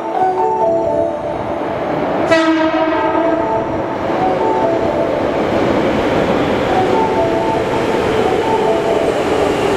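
Hankyu 5300-series electric train sounds a short horn blast about two seconds in, then its rumble on the rails grows as it runs into the underground station platform. A station's electronic chime melody repeats over it throughout.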